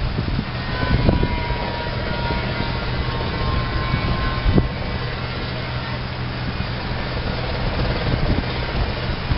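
Steady low engine drone, with wind buffeting the microphone now and then.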